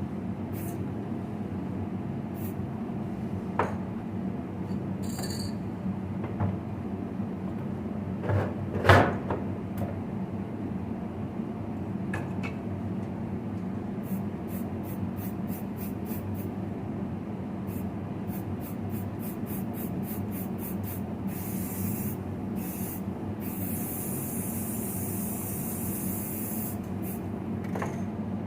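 Varnish being sprayed onto cleaned alternator parts over a steady workshop hum: a few sharp knocks from handling, the loudest about nine seconds in, then a run of light ticks and a hiss of spray for several seconds near the end.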